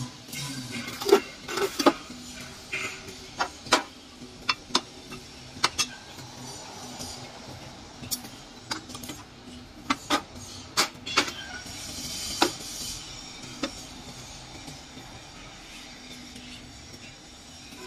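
Hand-lever interlocking clay brick press being worked: irregular sharp metal clanks and knocks as its lid, lever and mould are moved, more than a dozen, thinning out in the last few seconds.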